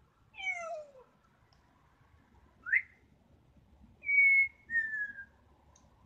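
African grey parrot whistling: first a falling call with overtones, then a quick rising whistle, and near the end two held whistled notes, the second a little lower and sliding down.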